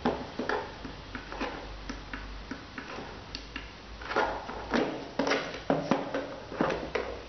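Irregular plastic clicks and taps from handling a rechargeable LED road flare, its button pressed to switch between flash modes, with a run of louder knocks in the second half.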